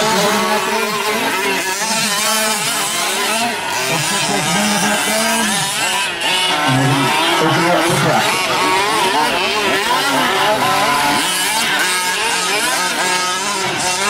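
Several 1/5-scale gas RC trucks' small two-stroke engines revving up and down together as they race, their pitches rising and falling and overlapping.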